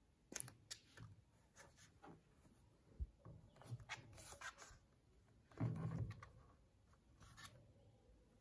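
Soft handling noise from a small plastic cylindrical speaker: fingertips rubbing a paper sticker onto its shell with scattered light rubs and clicks, then the speaker being lifted and turned. A little past halfway comes the loudest part, a low knock and scrape as it is handled and set down.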